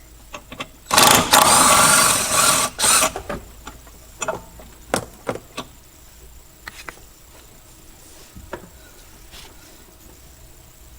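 Ratchet wrench working a 10 mm bolt: a loud rattling burst of ratcheting about a second in that lasts about two seconds, followed by scattered metallic clicks and taps of the tool.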